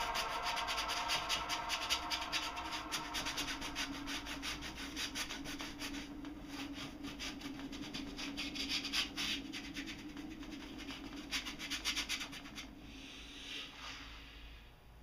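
Thick impasto paint being scraped and rubbed across a canvas in quick, dense scratchy strokes, which thin out and get quieter near the end.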